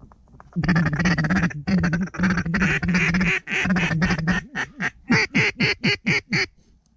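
Mallard duck call blown by a hunter: a long string of loud hen-mallard quacks, drawn out at first, then shorter and quicker, each dropping in pitch, calling to passing ducks.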